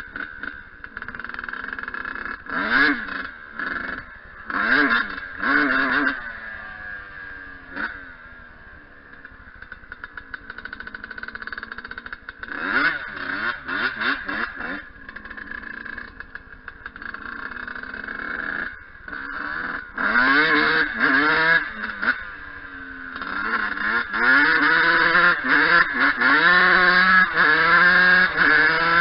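Yamaha YZ125 single-cylinder two-stroke dirt bike engine ridden hard, revving up and dropping back again and again, with repeated rising pitch sweeps as it pulls through the gears. The loudest, longest run of acceleration comes in the last few seconds.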